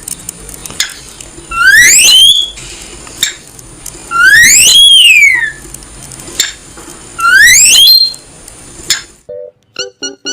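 Cockatiel giving loud shrill calls, three times, each a single note that rises and then falls in pitch.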